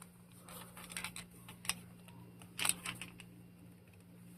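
A handheld flashlight being handled: a scatter of small plastic clicks and taps, the loudest about two and a half seconds in, over a faint steady low hum.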